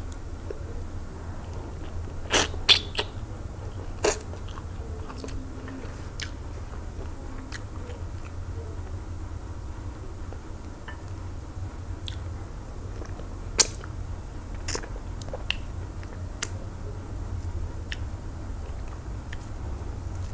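Close-up chewing and eating sounds from a person eating eba and okro-melon soup with goat meat and smoked fish by hand: scattered sharp smacks and clicks, a cluster of them about two to four seconds in and the loudest near the middle, over a steady low hum.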